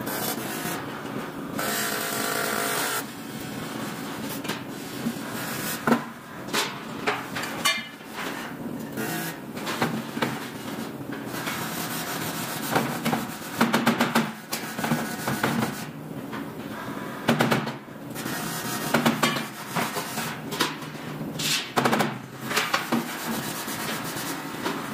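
Factory workshop noise: irregular knocks and clanks of aluminium ladder parts being handled, over a steady background noise.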